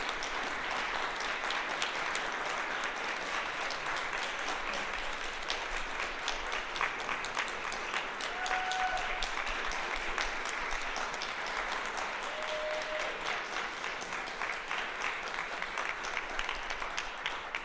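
Audience applauding steadily, a dense patter of clapping that dies down at the very end.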